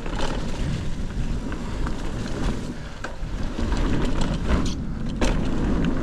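Mountain bike being ridden over a dirt trail: wind rumbling on the microphone, with tyre noise and the bike's rattles and knocks, the sharpest knock about five seconds in.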